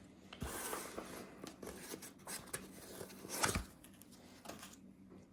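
Unboxing handling noise: packaging rustling and scraping with small knocks, loudest in a short burst about three and a half seconds in.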